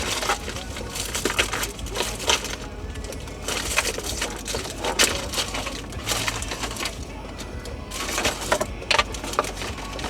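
Irregular clicks, taps and rattles of plastic dash trim and small parts being handled and pried at.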